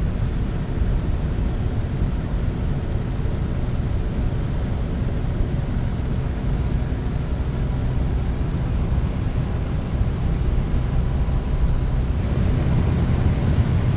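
Propeller plane's engine and propeller drone heard through an open cabin window, a steady low rumble with wind rush, its pitch holding even throughout.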